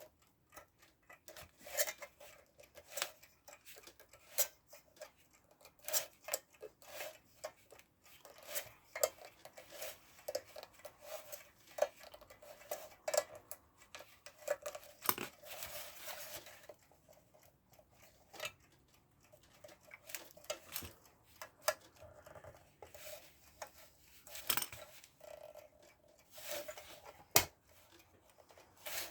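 Small metal parts of a mechanical alarm clock being handled: irregular clicks, taps and light scraping as the case back is worked over the mainspring winding keys, with one sharper click near the end.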